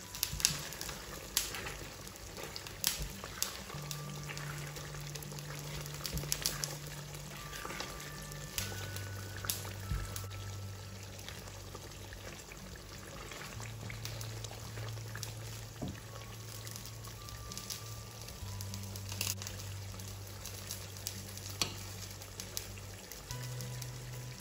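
Chicken binagoongan sauce simmering in a stainless steel pan: steady bubbling with frequent sharp pops and spatters. Soft background music with low held notes plays under it.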